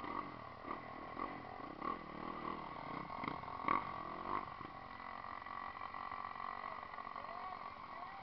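Dirt bike engine running close by, revved in a string of short blips through the first half, then settling to a steadier run. A couple of sharp knocks come about three to four seconds in.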